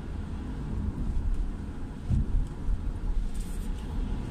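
Road noise of a car driving on a wet road, heard inside the cabin: a steady low rumble with tyre hiss. There is a low thump about two seconds in, and a brief rush of spray as an oncoming vehicle passes near the end.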